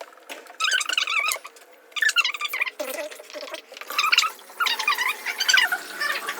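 High-pitched voice making a series of short wordless squeals or squeaky vocal sounds, about five bursts with gaps between them.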